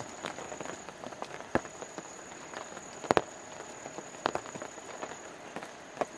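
Scattered sharp ticks, about a second or two apart, over a steady hiss with a thin high whine; the loudest is a double tick about three seconds in.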